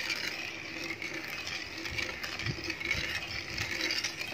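Sugared water boiling in a wok, bubbling and hissing steadily, while a metal ladle stirs it to dissolve the sugar.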